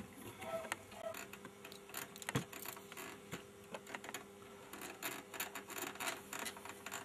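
Small irregular clicks and taps of hands handling wires and metal parts of a 16 mm sound film projector, over a faint steady hum.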